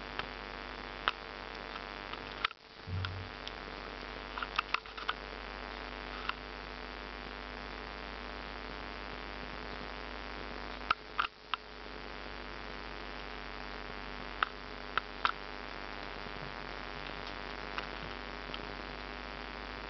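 Steady electrical mains hum with hiss, with scattered sharp clicks and a brief low thump, and the sound dropping out for a moment twice.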